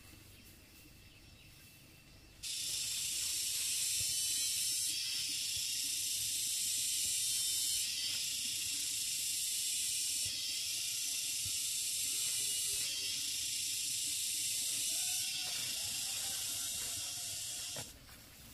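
A loud, steady hiss with no pitch, starting about two seconds in and cutting off shortly before the end. Its level shifts slightly every couple of seconds.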